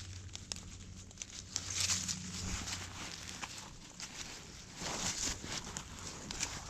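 Rustling and scraping through leaf litter and soil, with scattered small clicks and louder bursts about two seconds in and about five seconds in.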